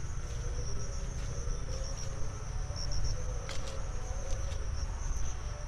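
Steady high-pitched chorus of insects, crickets or similar, over a constant low rumble, with a few faint ticks.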